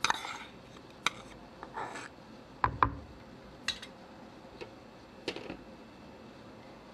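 A metal spoon scraping and clinking against a bowl as ginger-garlic paste is spooned out: a handful of short clicks and scrapes, the loudest a dull knock about three seconds in, then quiet.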